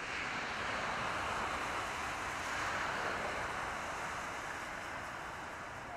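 Road traffic: a steady hiss of car tyres on the road that swells slightly about halfway through as cars pass, then eases.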